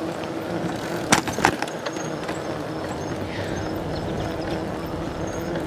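Genesis 26-inch bicycle being ridden: steady rolling noise with a faint hum, and a couple of sharp clicks or rattles about a second in.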